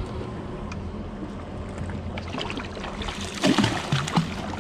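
Outboard motors running with a steady low hum over wind and water noise; about three and a half seconds in, a hooked small shark thrashes at the surface beside the boat, splashing for about a second.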